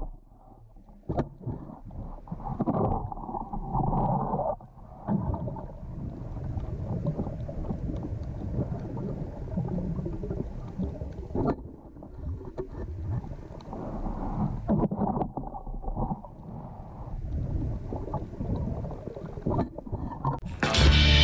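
Muffled underwater noise picked up by a camera in a waterproof housing as a freediver swims over the seabed: water rushing and swirling, with occasional sharp clicks. Background music comes in loudly near the end.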